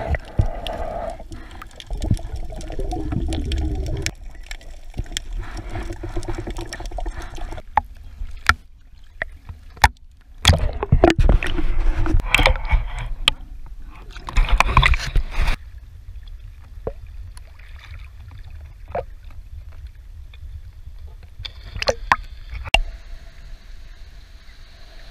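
Muffled water noise heard through a camera held underwater: sloshing and bubbling with many scattered clicks and knocks, and louder swishing bursts about halfway through.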